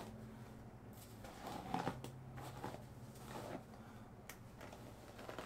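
Faint rustling and handling noises with a couple of soft clicks, over a low steady hum.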